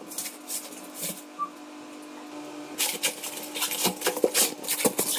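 Handling noise from the plastic water geyser and its packaging: scattered clicks, knocks and rustles, much busier from about three seconds in, over a steady low hum.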